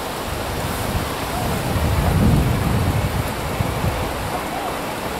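LNER A4 Pacific steam locomotive approaching under steam, a low rumble of exhaust and running gear that swells to its loudest about two seconds in, over a steady hiss.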